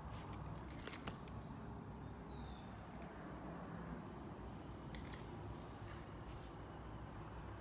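Faint steady low background hum with a few soft clicks and one brief high chirp about two seconds in.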